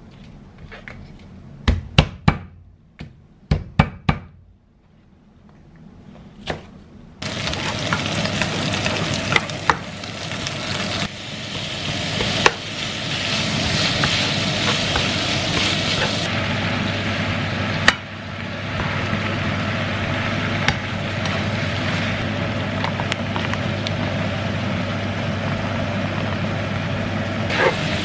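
A knife chopping cabbage on a cutting board, a handful of sharp knocks in the first few seconds. About seven seconds in, ground pork and vegetables start sizzling steadily as they are stir-fried in a nonstick frying pan, with an occasional tap of the spatula against the pan.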